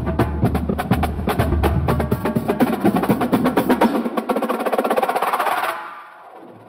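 Electronic dance music with dense, fast percussion over a steady bass line; the bass cuts out about four seconds in and the music fades down to quiet near the end.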